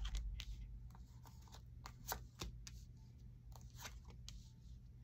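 Tarot cards being drawn from the deck and laid down on a cloth-covered table: faint, irregular flicks and taps of card stock, about a dozen over a few seconds.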